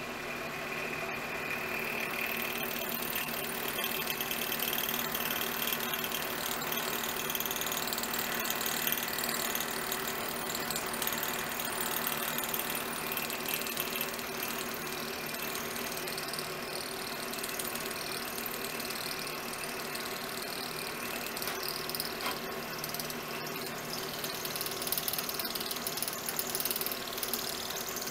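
Milling machine running steadily, its end mill cutting an aluminum vise jaw: a constant motor hum under a shifting, scraping hiss from the cut.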